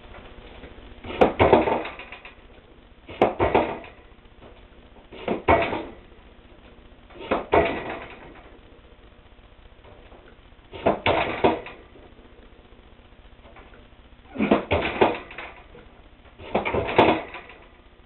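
Seven explosive L-sit pull-up reps with a thigh slap, each a short cluster of sharp slaps and knocks as the hands leave the bar, slap the thighs and catch the bar again. The reps come about two seconds apart at first, then with longer pauses between the last three.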